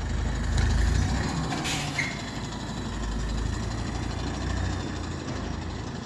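A mini tractor's engine running steadily, with a few sharp clicks in the first two seconds.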